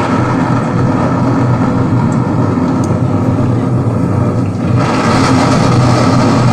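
Loud recorded soundtrack accompanying a mime skit: a dense, steady low rumble that grows brighter about five seconds in.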